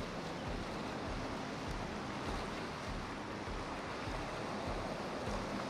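Steady wash of river water stirred up by passing motor yachts, with a faint boat-engine hum and wind buffeting the microphone.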